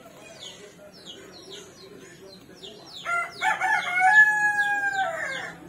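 A rooster crowing once about three seconds in: a few short choppy notes running into a long held note that sags in pitch at the end. Behind it a small bird repeats a short falling chirp a few times a second.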